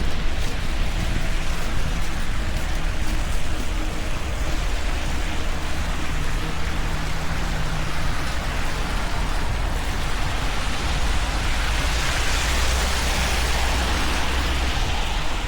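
Steady hiss of city traffic on wet, slushy pavement over a low rumble, the tyre hiss swelling louder about twelve seconds in as a vehicle passes close.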